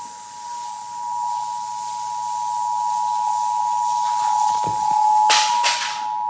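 Emergency Alert System two-tone attention signal, the 853 Hz and 960 Hz tones sounding together as one steady, unbroken alarm tone over a constant hiss. It marks the start of an emergency alert broadcast. Two short loud rushes of noise cut in about five seconds in.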